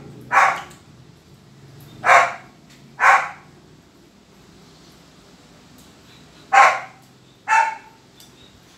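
A dog barking: five single sharp barks, one near the start and then two pairs about a second apart.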